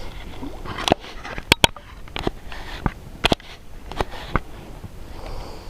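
A series of about eight sharp knocks and clicks at irregular intervals, typical of fishing gear or a landed fish being handled in a small boat.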